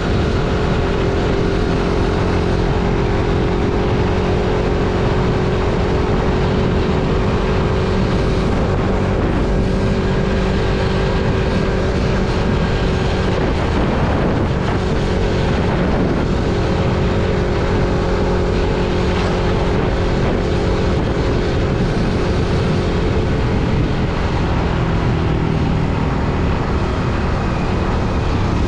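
Motorcycle engine running at a steady cruising speed, its pitch holding level with no revving, under a constant rush of wind and road noise.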